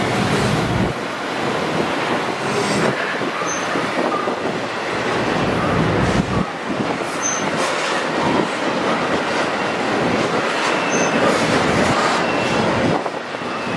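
Intermodal freight train of trailers on flatcars rolling past close by: a steady, loud rush of steel wheels on rail, with a few brief high wheel squeals.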